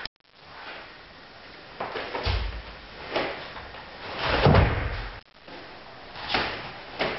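Two karate partners in cotton gis move through block-and-strike drills: their jackets swish and snap, with knocks and thuds of contact and feet on foam mats. The heaviest thump comes about four and a half seconds in, and the sound breaks off briefly just after it.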